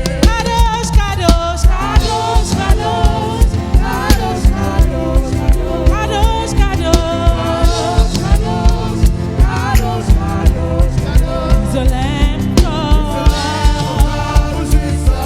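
Gospel worship music: voices singing a wavering melody over a band with a steady, even drum beat.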